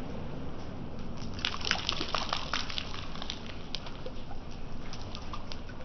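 Rain pattering, with many separate drops ticking and splashing into a puddle, the drops thickest about one and a half to three seconds in, over a low steady rumble.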